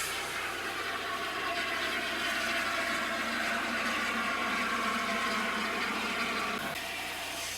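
Steam locomotive letting off steam: a steady rushing hiss that drops away about seven seconds in.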